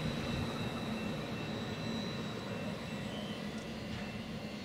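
MetroLink light rail train pulling away from the station, its running noise a steady low rumble that slowly fades as it moves off.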